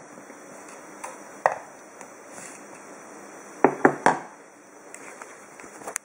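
Espresso tamping: a steel tamper and portafilter clicking and knocking against the tamping mat and countertop. A few light clicks, then a quick run of three or four sharp knocks about three and a half seconds in.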